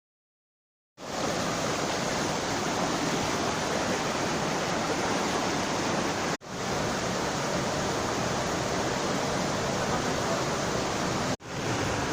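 Steady rush of a mountain stream's water, starting about a second in after silence and broken off by two brief dropouts at cuts in the recording.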